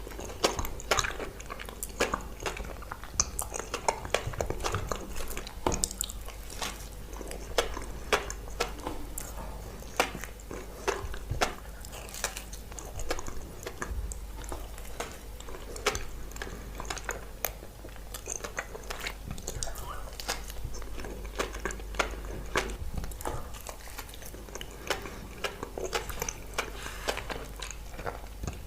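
Close-miked eating of glazed donuts: biting and chewing with many short, sharp, irregular mouth clicks and smacks, over a low steady hum.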